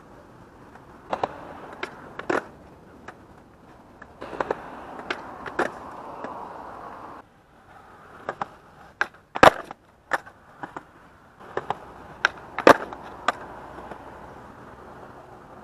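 Skateboard wheels rolling over concrete, with a series of sharp wooden clacks as the board is popped and slapped back down onto the ground. The two loudest clacks come about nine and a half and twelve and a half seconds in.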